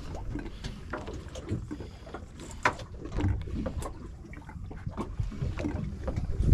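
Low steady rumble aboard a small fishing boat, with scattered knocks and clicks of tackle and fish being handled on deck; one sharper knock a little under three seconds in.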